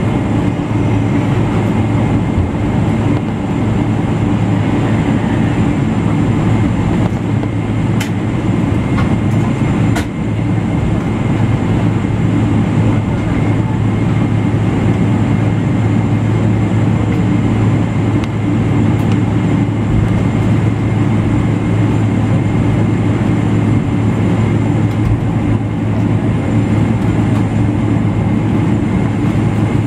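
Steady cabin drone of a Boeing 777-200LR taxiing, with its General Electric GE90-115B engine running at low power: a constant deep hum and a thin high whine over the rumble of the rolling aircraft. Two short sharp clicks sound about eight and ten seconds in.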